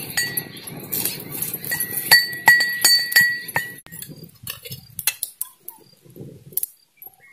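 Pestle pounding in a small metal cup, each strike giving a ringing clink, about three a second. The pounding stops about four seconds in, leaving a few faint taps.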